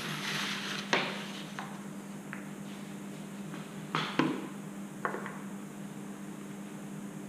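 Sheets of paper rustling and crinkling under bare feet, with a few sharp knocks, the loudest pair about four seconds in, over a steady low hum.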